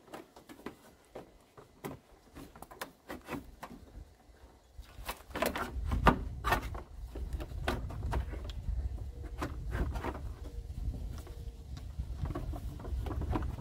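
Scattered clicks and knocks of a plastic cooling fan assembly being handled and worked into place in a car's engine bay. A low rumble comes in about halfway.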